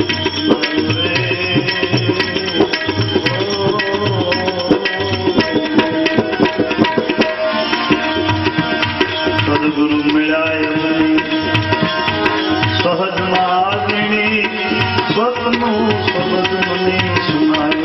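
Instrumental interlude of a Gujarati devotional bhajan: tabla keeping a steady rhythm under melody instruments.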